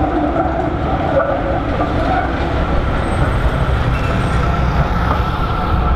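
Trams running on street track: an articulated tram pulls away round a curve with a whining hum that fades over the first couple of seconds, while a B2-class tram approaches over a low, steady rumble of wheels and road traffic.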